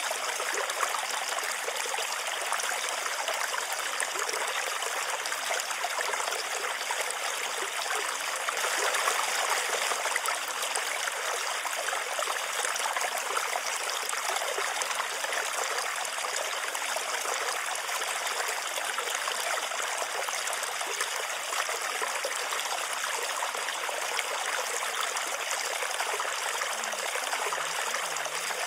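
Steady rain, an even hiss of falling water that never lets up.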